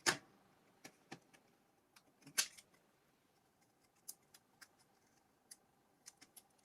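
Sparse small clicks and taps of a tool against the plastic parts of a Nokia 6600 slide phone being taken apart, working at the keypad to reach the screws beneath it. The loudest clicks come at the very start and about two and a half seconds in.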